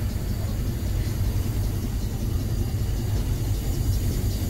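Steady low rumble aboard the steamship DS Spiez underway, from its running machinery and hull, with no distinct strokes or rhythm.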